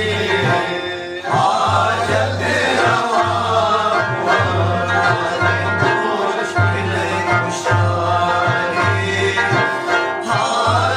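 Devotional ginan music: a rubab plucked over regular frame-drum (daf) beats, with a man's voice singing the melody.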